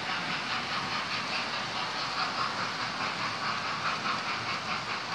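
Model trains running on the layout's track: a steady whirring run of small electric motors and wheels on rails, with a faint fast clicking.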